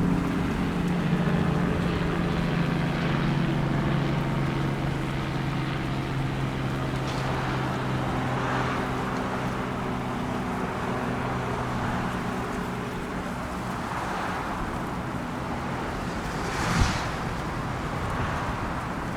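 A motor's steady hum, which fades away over the first dozen seconds, over a constant rush of wind-like noise. A short sharp sound comes near the end.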